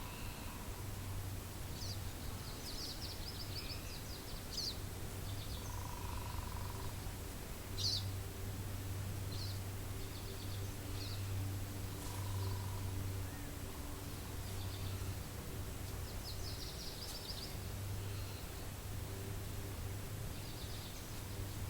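Small birds calling in the morning: scattered short high chirps and several quick trills, with a soft lower note repeating about every six seconds, over a steady low wind rumble.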